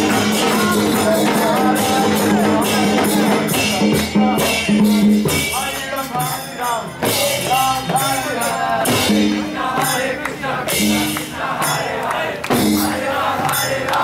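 Loud Vaishnava devotional music with a singing voice over steady jingling percussion and held notes.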